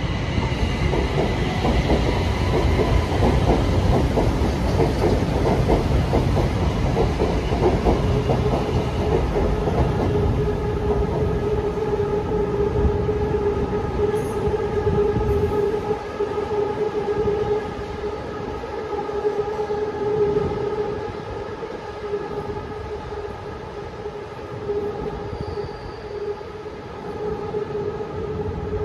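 Electric elevated metro train running on the viaduct: a heavy rumble of wheels on track that eases after about sixteen seconds, with a steady whine of several held tones coming in about ten seconds in and holding on.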